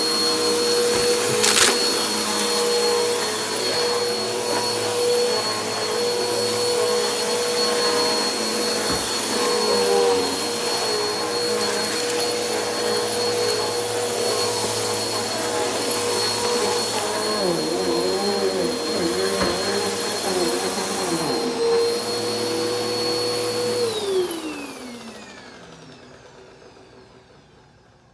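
Helix Turbo upright vacuum cleaner running with a steady motor whine while its hose wand is in use, the pitch wavering for a few seconds in the middle, with a single knock near the start. About 24 seconds in it is switched off and the motor spins down, the whine falling in pitch as it fades.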